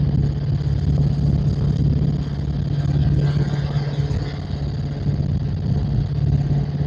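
Helicopter in flight on a low, fast pass: a steady low drone of rotor and engine.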